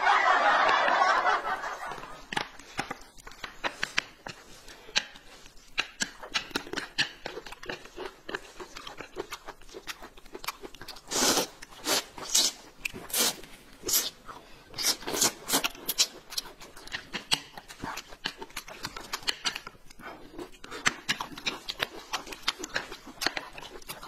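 Close-up eating sounds: noodles being slurped and food chewed, a long run of short wet smacks and clicks with a louder stretch of slurping near the middle. A laugh trails off in the first second or so.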